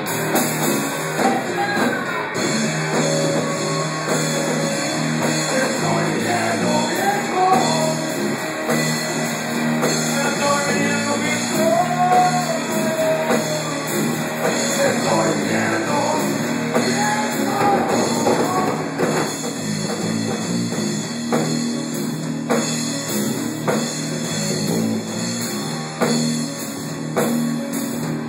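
A live rock band playing electric guitars over a drum kit.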